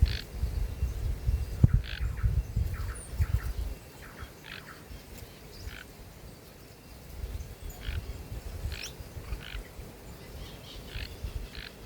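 Several small wild birds at a feeder giving short, separate chirps and calls. During the first few seconds a low rumble and thumps sit under them, with a sharp knock about two seconds in.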